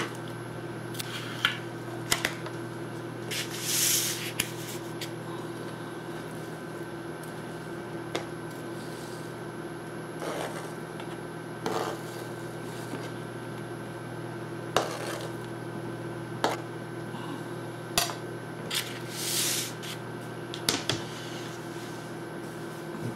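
Chef's knife cutting and dicing a yellow bell pepper on a plastic cutting board: scattered single knocks of the blade on the board, and a few brief scraping sweeps as pieces are pushed across it, over a steady faint hum.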